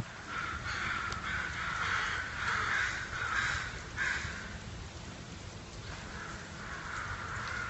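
Crows cawing repeatedly: a quick run of harsh caws through the first half, then fainter calling near the end.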